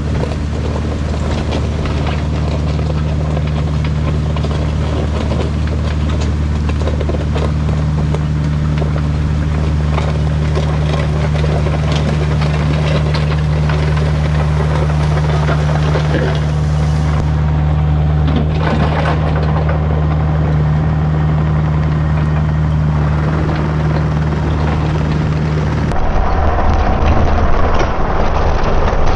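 Diesel engine of a Kubota work machine running steadily under load, with scattered knocks and scrapes over it. About three seconds before the end the sound changes abruptly to a louder, rougher clatter.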